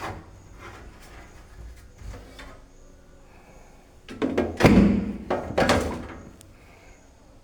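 Sheet-metal cover of an NVR case being slid off and handled: a few light knocks, then a loud burst of metal scraping and knocking about four seconds in.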